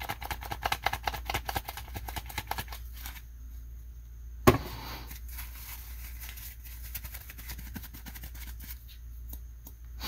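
Paper towel crinkling and rubbing in the hand as a stripped optical fiber is wiped clean before cleaving: a fast run of rustling for the first three seconds, then one sharp click about four and a half seconds in, with faint handling noise after.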